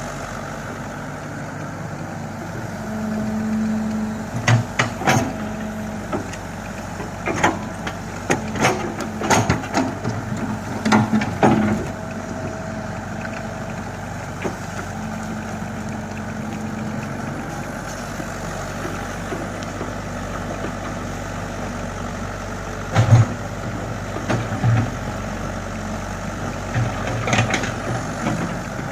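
Komatsu hydraulic excavator's diesel engine running steadily, its note strengthening at times under load. Sharp knocks and clanks come in clusters as it digs sand.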